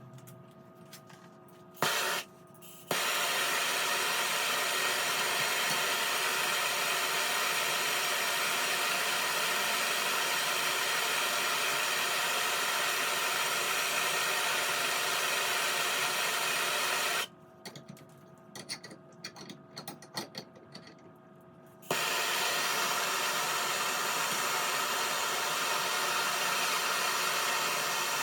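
Gas torch hissing steadily as it heats a piece of round steel bar for bending. It cuts in after a brief burst about two seconds in, stops for a few seconds past the middle, then starts again.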